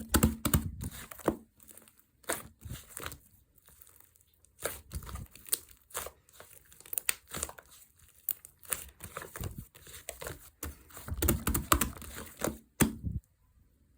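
Hands squeezing, stretching and pressing slime, making irregular crackling, popping and crinkling sounds in quick clusters with short pauses between. It goes quiet shortly before the end.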